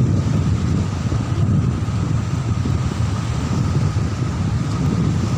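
Wind buffeting the microphone, a steady, gusting low rumble.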